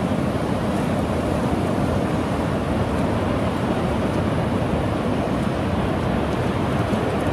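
Ocean surf washing onto a beach, a steady, even rush with no distinct breaks, mixed with wind on the microphone.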